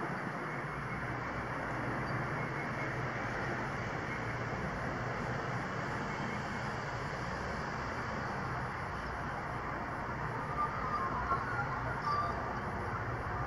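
Steady distant engine rumble, even in level throughout, with a few faint brief higher sounds near the end.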